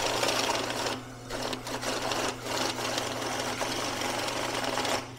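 Kolibri electric bill counter running, its motor humming as it riffles a stack of one-dollar bills through in a fast continuous rattle. There is a short lull about a second in, and it stops abruptly just before the end as the batch finishes.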